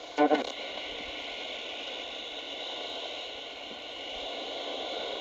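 Shortwave static hissing steadily from a small portable radio's speaker while it is tuned between stations during a band scan, with a few faint steady whistle tones in the hiss.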